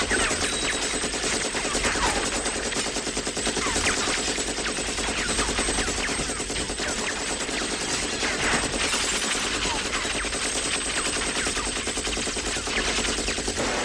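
Continuous rapid automatic fire from a belt-fed machine gun, a dense unbroken rattle of shots at a steady level, as heard in a movie action-scene soundtrack.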